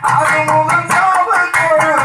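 Tamil folk music from a pambai drum ensemble: the drums beat a fast, even rhythm of about five strokes a second, with a man singing into a microphone over them.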